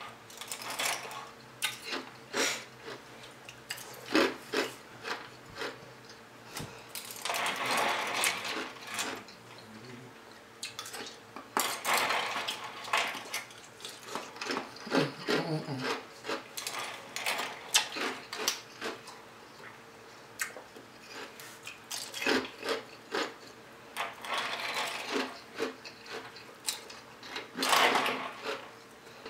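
Ice being crunched and chewed in mouthfuls, with a plastic spoon clicking and scraping against the ice in a cup between bites.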